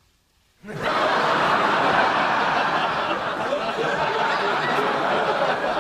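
Sitcom studio audience laughter, starting suddenly under a second in after near silence and continuing loudly.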